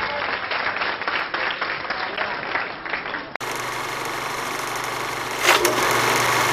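Applause, then an abrupt cut a little over three seconds in to the steady mechanical whir and hum of a film projector sound effect, which gets louder with a short rush about five and a half seconds in.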